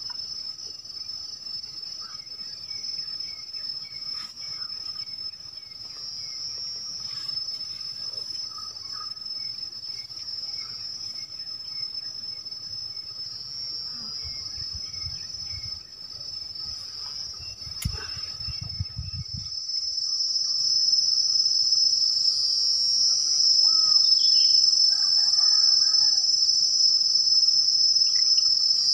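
Steady high-pitched chorus of insects in riverside forest, getting louder about two-thirds of the way through. A brief low rumble and a sharp click come a little past halfway.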